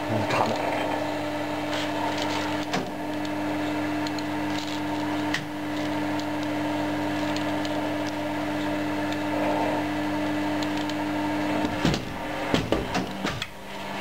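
Small vertical injection molding machine's hydraulic pump motor running with a steady hum, over light clicks of metal parts being handled. Near the end the hum breaks off and there is a clunk and a clatter.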